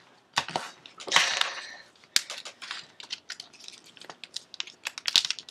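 Paper being folded and creased by hand: crisp crackles and taps, with a longer rustling swish about a second in.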